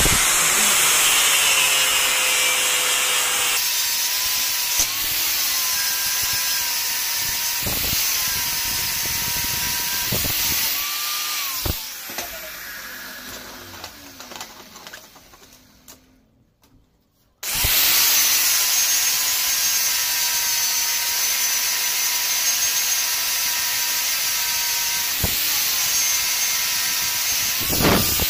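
Angle grinder with an abrasive disc grinding the end of a steel rod into a flat tip, its motor pitch dipping each time the disc bites. About twelve seconds in it is switched off and winds down over a few seconds to silence, then starts up again about seventeen seconds in and grinds on.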